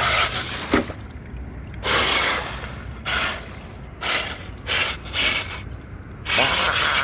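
Electric RC mud-bogger truck driven in short throttle bursts through a mud hole, about five surges of wheel-spinning and churning mud and water.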